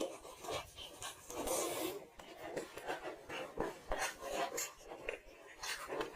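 Close-miked eating sounds: many short crackling clicks from chewing and mouth movement, with a longer scraping crunch about a second and a half in.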